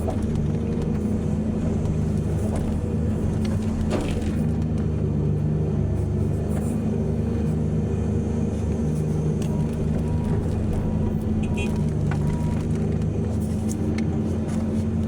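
Heavy diesel engine of mining machinery running steadily at a constant speed, with a sharp knock about four seconds in and a few short clanks near the end.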